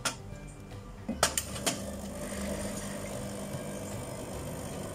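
A few sharp clicks and knocks, then a steady mechanical hum from a small motor that starts a little under two seconds in.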